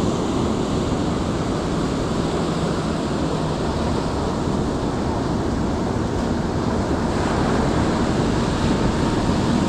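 Surf washing onto the beach, a steady rushing noise, with wind buffeting the microphone.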